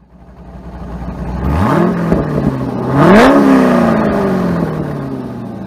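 Car engine revving twice. It fades in at a low idle, rises sharply about a second and a half in, then gives a bigger rev about three seconds in that slowly falls away.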